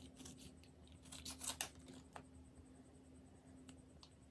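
Scissors snipping open a plastic noodle-sauce sachet: a few short, crisp cuts, the loudest cluster about a second and a half in.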